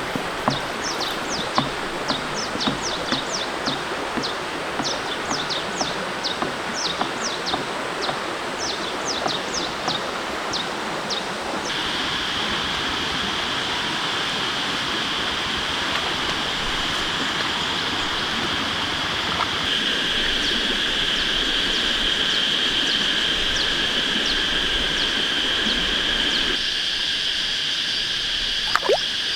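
Outdoor nature ambience: a steady rushing hiss with rapid, repeated high chirps for about the first twelve seconds. After that, a steady high insect drone takes over. The sound shifts abruptly a few times.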